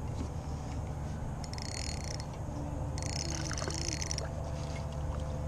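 Spinning reel being cranked to retrieve a small bass, a quick whirring rattle in two short spells about a second apart, over a steady low rumble.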